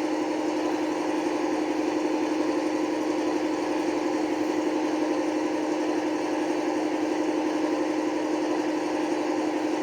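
Sound decoder of an Accurascale Class 55 Deltic model locomotive playing a recorded Deltic diesel engine idling through the model's small speaker: a steady, unchanging engine hum.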